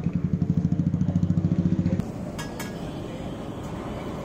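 A nearby engine running with a fast, even thudding pulse, about a dozen beats a second. It stops abruptly about two seconds in and gives way to a quieter steady rushing noise with two sharp clicks.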